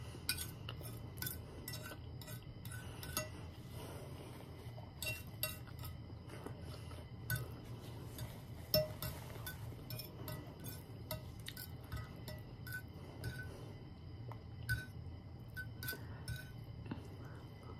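Metal fork clinking and scraping against a ceramic plate while noodles are picked up, in irregular light clinks with a few louder ones.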